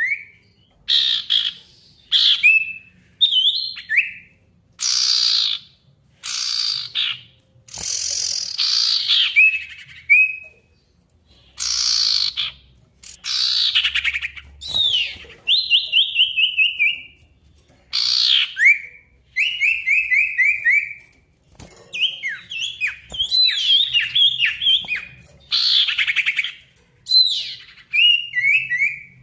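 Male sirtu, a songbird prized by Indonesian bird keepers, singing loudly in full voice. It gives short, repeated phrases about every one to two seconds: sharp notes sweeping steeply down in pitch and quick chattering runs of short notes. This is the eager 'gacor' song that keepers use as a challenge call to set other birds singing.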